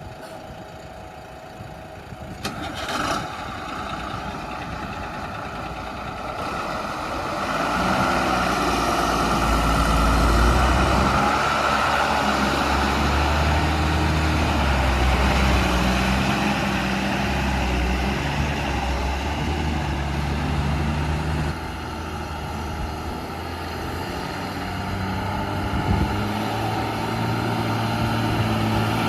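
Heavy diesel engine running, growing louder about seven seconds in and shifting pitch up and down in steps as it is worked. A couple of sharp knocks come a few seconds in.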